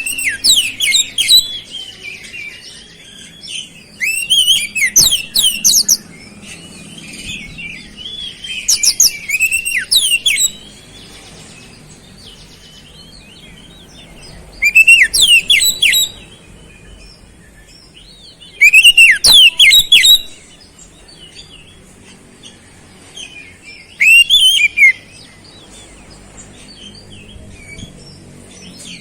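Oriental magpie-robin (kacer) in full song, its song filled with mimicked flowerpecker (cabe-cabean) notes. Loud bursts of rapid, high, sweeping whistles come every four or five seconds, with softer twittering between them.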